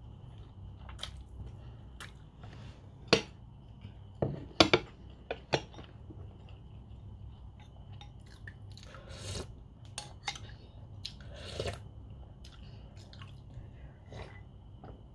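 Eating sounds: chewing, with a few sharp clinks of a spoon and ceramic dishes, the loudest about three to six seconds in.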